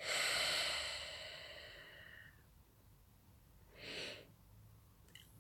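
A woman's long breath out, a sigh that fades over about two seconds, then a short breath in about four seconds in.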